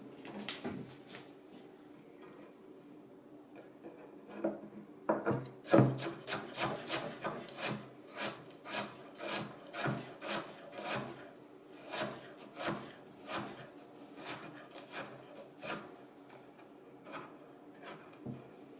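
Rhythmic scraping strokes on a hard surface, about two a second, starting a few seconds in and stopping a couple of seconds before the end.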